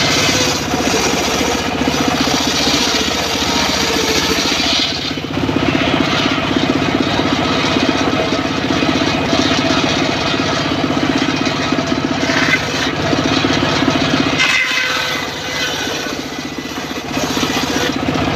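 Homemade circular saw bench running steadily, its blade ripping teak planks; the cutting noise swells as boards are fed through and eases briefly twice, about five seconds in and again near the end, between cuts.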